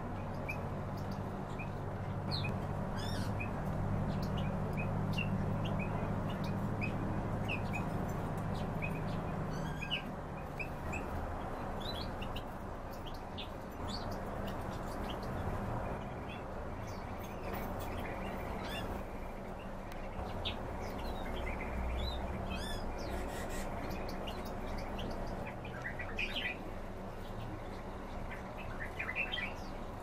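Eurasian tree sparrows and other small cage birds chirping in short, scattered chirps, busier near the end, over a steady low hum.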